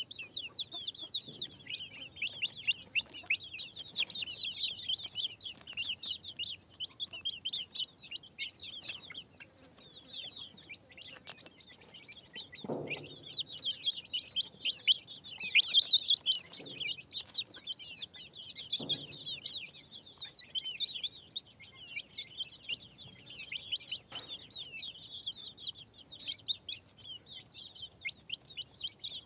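Chickens: a constant stream of short high chirps, with a few lower clucks around the middle.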